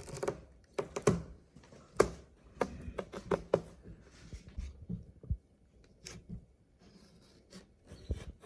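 Crab and shellfish shells being cracked and handled while eating: a string of irregular sharp clicks and knocks, dense for the first few seconds and sparser after that.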